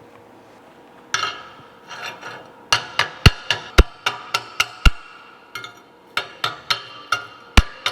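Chipping hammer striking steel plate, knocking slag off freshly made tack welds: a brief scrape about a second in, then a run of sharp metallic clinks, two or three a second, each ringing briefly.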